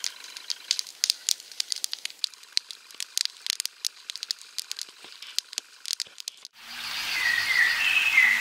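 Wood fire crackling, with many irregular sharp pops and snaps. About six and a half seconds in, it cuts to a steady rain-like hiss with chirping tones.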